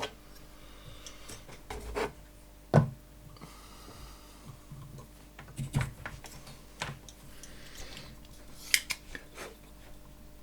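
Scattered clicks, taps and knocks of small tools being handled and set down on a workbench during circuit-board soldering work, the loudest a sharp knock a little under three seconds in. A low steady hum sits under it.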